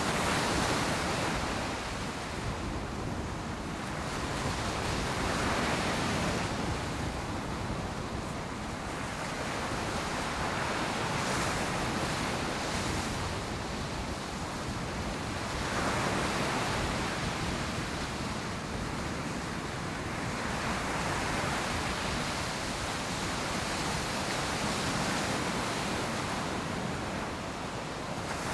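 Ocean surf breaking on the beach: a steady wash of noise that swells as each wave comes in, about every five seconds.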